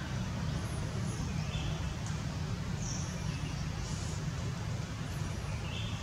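Outdoor ambience: a steady low rumble with short high chirps, like a bird's, repeating about once a second.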